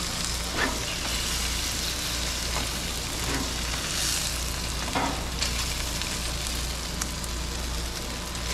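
Freshly flipped shark fillets in a butter marinade sizzling steadily on a hot copper grill mat, with a few short knocks of a metal spatula against the mat.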